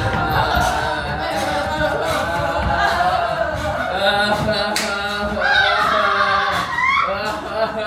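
Unaccompanied wordless singing, with pitches that slide up and down and no instruments.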